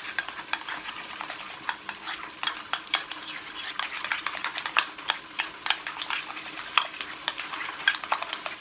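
A spoon stirring and folding a thick homemade tartar sauce of mayonnaise, relish and mustard in a bowl, clicking and scraping against the bowl in quick, irregular strokes.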